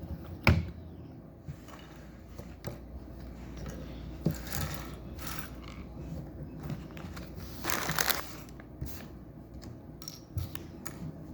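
Small plastic Lego pieces clicking and rattling as they are handled and pressed together, with a sharp click about half a second in and a few brief rustles.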